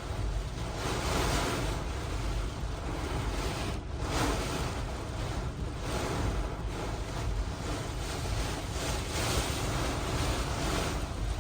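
Hurricane-force wind from a major hurricane's eyewall, blowing in strong, rushing gusts that swell and ease every second or two over a constant low rumble.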